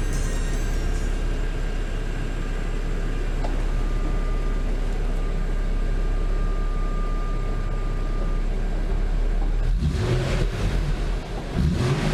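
Infiniti G37's 3.7-litre V6 idling steadily, then revved briefly twice near the end. The engine is being run to check whether the newly fitted aluminum undertray rattles.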